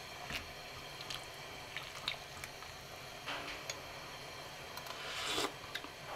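A metal spoon stirring chicken broth in a stainless steel pot: scattered light clinks and taps with a few wet swishes, the loudest swish about five seconds in.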